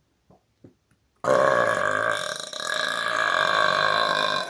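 A man's long, loud, pitched burp lasting about three seconds, starting about a second in. It falters briefly midway, then carries on at full strength.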